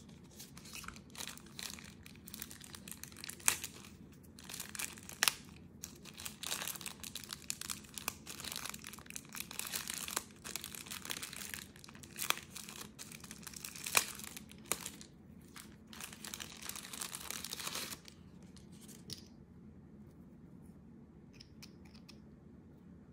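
Thin paper wrapping crinkling and crackling as it is unwrapped by hand, with many sharp crackles. The crinkling stops about three quarters of the way through, leaving only a few faint clicks.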